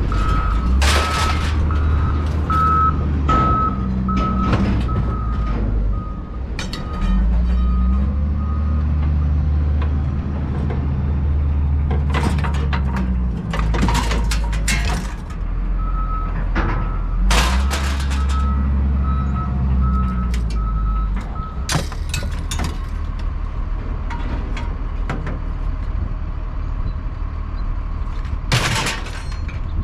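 A truck's engine running, with a repeated electronic beep of about two a second in two runs of several seconds, like a reversing alarm. Several sharp clatters and bangs come in between.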